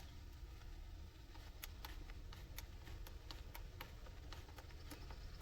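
Faint, irregular sharp clicks, a few a second, starting about a second in, over a low steady hum.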